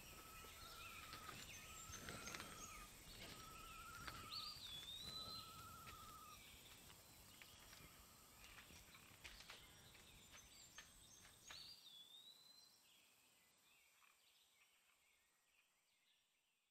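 Faint rural outdoor ambience with birds calling: a short warbled note repeated about five times in the first five seconds, a higher whistled call twice, and scattered chirps. The ambience fades out about thirteen seconds in.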